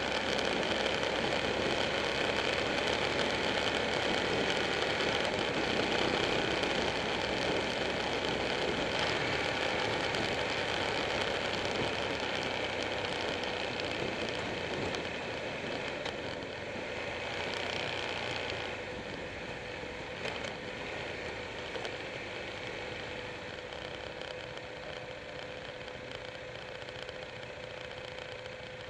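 Buell 1125R's V-twin engine running at road speed under wind and road noise, heard from a camera mounted on the moving bike. The sound gradually gets quieter through the second half.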